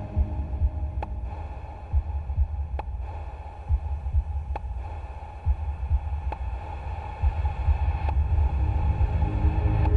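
Dubbed soundtrack of uneven low pulses, with a faint sharp click about every two seconds.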